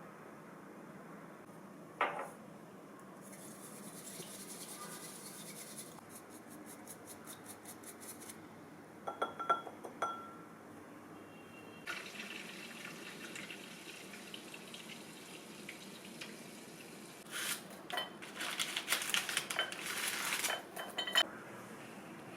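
Scattered sharp clicks and knocks of small hard objects over a faint hiss: one about two seconds in, a few around the middle, and a quick run of them near the end.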